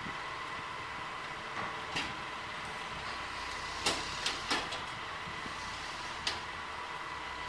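Loaded log truck moving slowly across a ferry barge deck: a steady running noise with a faint constant tone, broken by five sharp knocks, one about two seconds in, three close together near the middle and one near the end.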